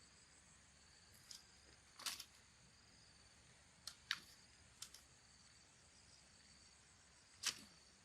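Near silence, with a faint steady high-pitched hum and a few faint short clicks and taps scattered through it, the loudest near the end.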